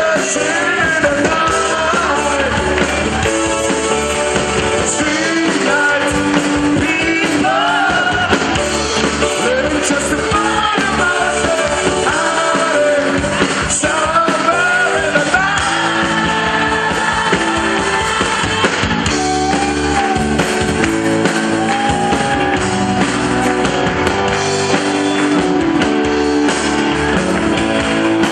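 Live rock band playing a song: a man singing lead over electric guitars, with a few other voices joining in.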